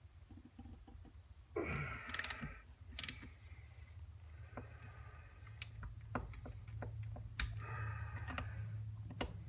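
Small metal tool clicks and knocks as a motorcycle connecting-rod cap is undone and handled on a workbench, with two short rattling patches, one about two seconds in and one near the end. A low steady hum comes in about halfway.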